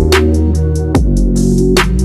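Electronic background music with a heavy bass line and regular drum hits about twice a second, without vocals.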